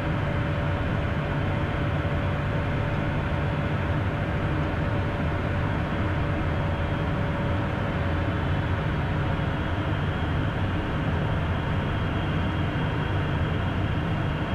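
Steady cockpit noise of a twin-turbofan Beechcraft Premier I descending on final approach: engine and airflow noise with a thin steady whine, unchanging throughout.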